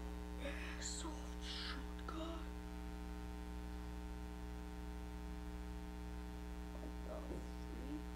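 Steady electrical hum with many even overtones. A few short hissing sounds come in the first two seconds, and a faint voice-like murmur near the end.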